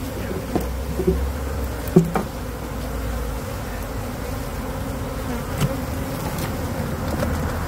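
Swarm of honey bees buzzing steadily around a wild colony opened up in a brick wall, the flying bees stirred up by the comb being cut out. A few light clicks and knocks of a metal hive tool against comb and brick.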